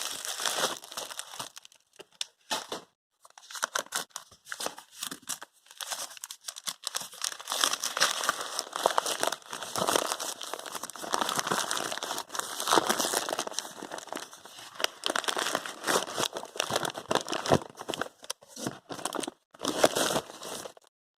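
Packaging being unwrapped by hand: crinkling and tearing of wrapping material in irregular spells with short pauses.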